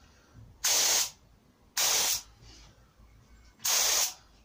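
Gravity-feed spray gun with a 1.8 mm nozzle (ANI) firing three short blasts of solvent, each a hiss of about half a second, with the air pressure turned down to about 20.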